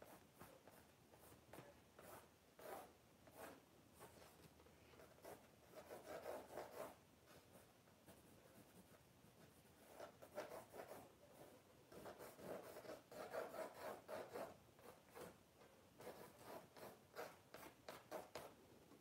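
Faint pencil strokes on a painting board, rubbing and scratching in short bursts as a drawing is sketched in.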